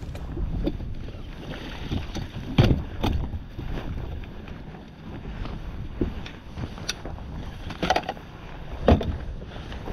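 Wind buffeting the microphone on an open boat deck, broken by several sharp knocks and clunks of gear being handled on the boat's deck.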